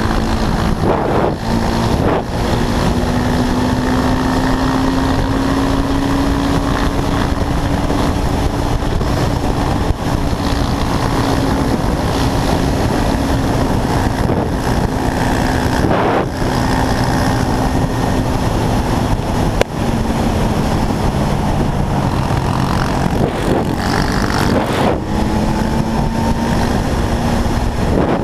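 Quad bike's engine running at road speed, its pitch drifting slowly up and down with the throttle, under a heavy rush of wind on the microphone.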